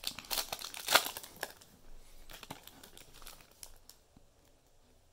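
Crinkling of a trading-card pack wrapper being handled and torn open. It is busiest in the first second and a half, with a sharp crackle about a second in, then thins to a few scattered crackles and dies down by about four seconds in.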